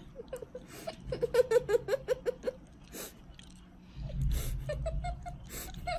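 A young girl's stifled giggling, a quick run of short pitched bursts, then a low muffled rumble near the end.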